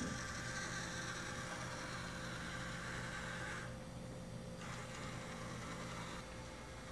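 Small electric motor of a homemade Nerf-blaster sentry turret whirring as the turret pans on its wheel, scanning for intruders. It stops for about a second just past halfway, runs again, then stops shortly before the end, as the scan pauses and reverses.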